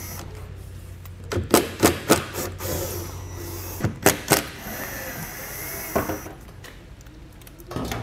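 Small cordless screwdriver with a T15 Torx bit running in short spurts, backing out the screws that hold the plastic wheel-well liner, with sharp clicks and knocks as the bit seats on the screw heads.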